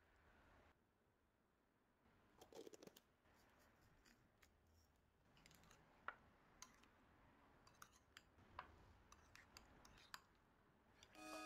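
Faint clicks and scrapes of a metal fork mixing potato and egg salad in a bowl. There is a short cluster of scraping about two and a half seconds in, then scattered light ticks through the second half, in near silence.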